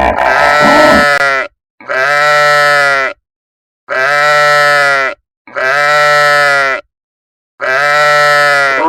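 A farm animal's bleating call, the same call heard five times in a row with clean silent gaps between, like a looped sound effect.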